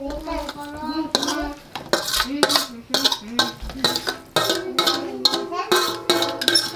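A metal fork scraping and clinking against a metal plate as cooked goat-head meat is pushed off it into a pot of broth. There are many quick scrapes and taps from about a second in.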